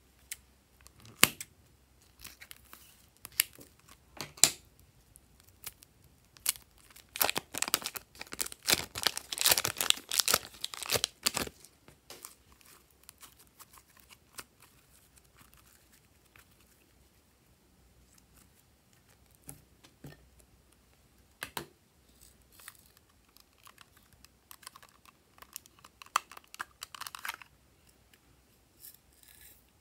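Plastic piping bag crinkling and crackling as it is handled and squeezed out: scattered sharp crackles, with a dense run of crackling about seven to eleven seconds in and a shorter cluster near the end.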